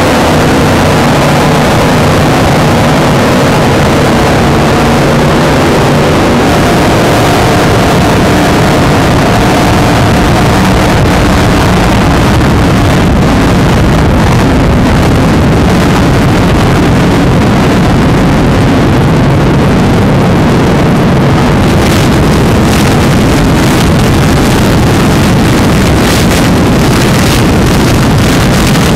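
Offshore powerboat engines running at high speed, with wind rushing over the microphone. A steady engine drone is clear for roughly the first ten seconds, then it is buried under wind and water noise with gusts near the end.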